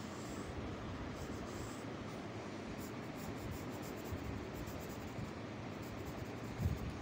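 Pencil scratching across sketchbook paper as lines are drawn, with a soft low knock near the end.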